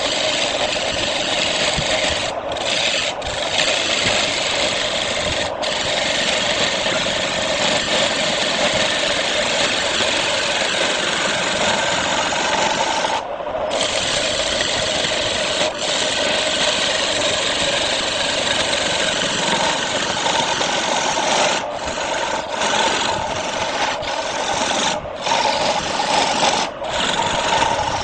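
Turning tool cutting a spinning wooden disc on a wood lathe: a loud, steady, rough scraping and shearing noise under the lathe motor's hum. The cutting noise breaks off briefly several times, longest about halfway through.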